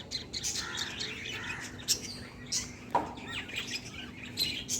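Birds chirping: many short, high chirps scattered throughout, with one sharp falling note about three seconds in.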